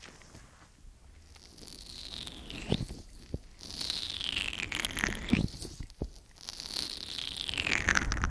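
Oiled hands rubbing and squishing over binaural microphone ears in an ear massage. After a quiet start come slow slick strokes, each a sweeping hiss that falls in pitch, with small wet clicks between them.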